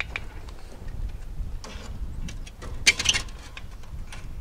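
Metal clanks and scrapes as a charcoal chimney full of briquettes is set down inside the steel firebox of an offset smoker, the loudest scrape about three seconds in, over a steady low rumble.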